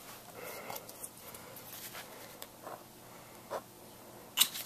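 Pen writing on notepad paper: faint, short scratching strokes. A sharp click about four and a half seconds in is the loudest sound.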